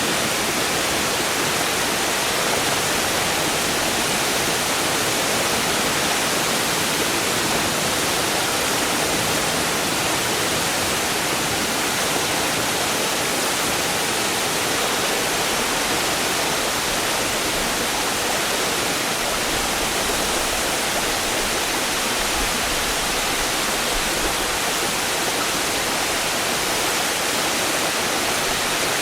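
Largish waterfall with a constant hiss of falling, turbulent water, with some gurgling and splashing in it. The level stays steady throughout.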